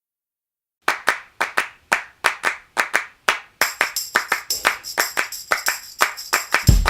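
Background music starting after a short silence: a rhythm of handclaps, about three to four a second, joined about halfway by a high jingling layer like a tambourine, with a bass drum coming in at the very end.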